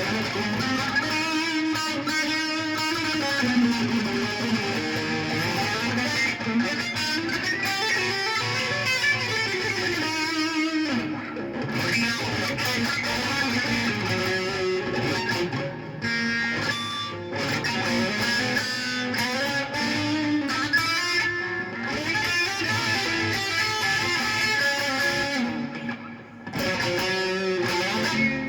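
A string instrument played solo, a wandering melody with notes sliding up and down in pitch and a couple of brief pauses.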